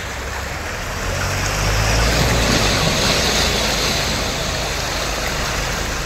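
Steady rushing of sea waves, with a low engine hum that swells about a second in and eases off toward the end.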